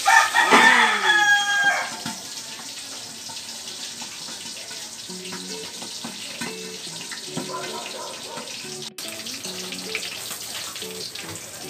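A rooster crows loudly during the first two seconds, over the sizzle of dried fish frying in oil in a lidded wok. After the crow, the steady frying hiss carries on.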